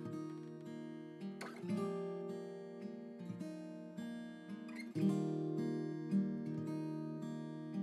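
Soft background music: acoustic guitar chords strummed and left to ring, with fresh strums about two seconds in and again about five seconds in.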